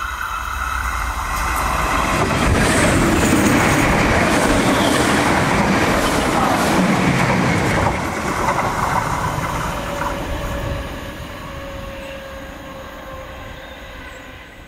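DART 8100-class electric multiple unit passing on the rails. The wheel-and-rail noise builds over the first couple of seconds and stays loud for several more. About eight seconds in it drops, then fades steadily as the train runs off into the distance, leaving a faint steady whine.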